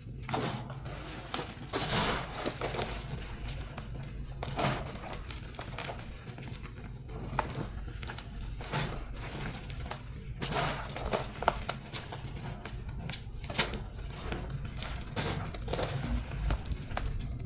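Dyed and pasted gym chalk blocks being crunched and crumbled, an irregular run of crisp crunches and crackles, some sharper than the rest, over a steady low hum.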